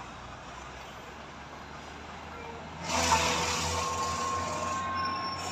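Heavy truck on a steep climb, with a low rumble in the background. About three seconds in, a sudden loud hiss starts with a low rumble under it and a steady high squeal over it, then it eases off slightly.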